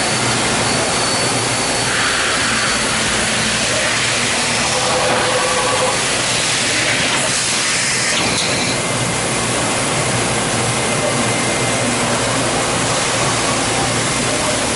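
Doosan Puma MX-1600ST multitasking CNC lathe running, a steady hiss and whir as its swivelling milling head repositions. Two brief brighter swells come about two and seven seconds in.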